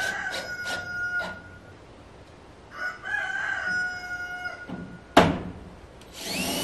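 A rooster crowing twice, each crow a held call of about a second and a half. Short power-tool whirs come near the start, and a single sharp knock about five seconds in is the loudest sound.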